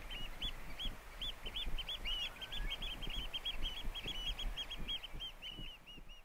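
A flock of birds calling: many short, high, overlapping calls repeated several times a second, fading out near the end.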